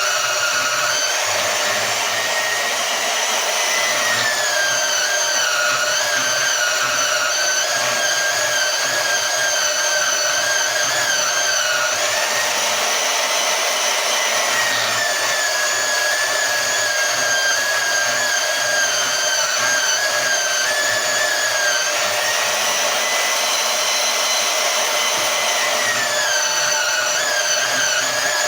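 Harbor Freight portable band saw cutting through thick steel: a steady high whine over the rasp of the blade, its pitch sagging and recovering every few seconds as the motor labours under the load.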